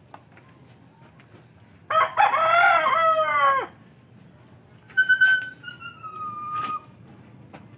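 A rooster crowing once, about two seconds in, the call lasting nearly two seconds and dropping at its end. A few seconds later comes a thinner, higher call that slowly falls in pitch, with a few sharp clicks around it.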